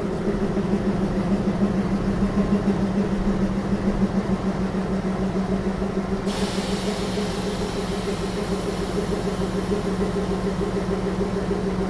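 Electric locomotive running with a steady hum of two droning tones, one deep and one higher. About six seconds in, a high hiss comes in suddenly and stays.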